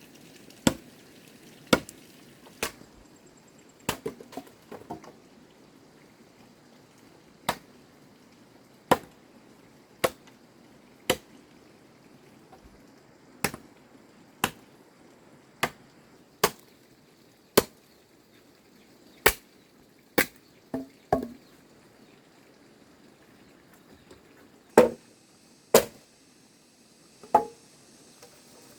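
A blade chopping in single sharp strikes, roughly one a second at an uneven pace, with a few quick double strikes.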